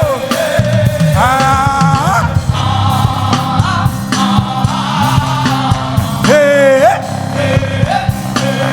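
Live gospel praise music: a band playing an upbeat groove with drum hits, and a voice singing lines that slide between notes, with a sharp upward glide about six seconds in.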